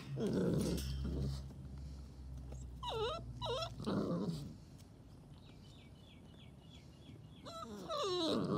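Staffordshire bull terrier puppies whimpering in short, high whiny cries, a pair about three seconds in and a longer run near the end.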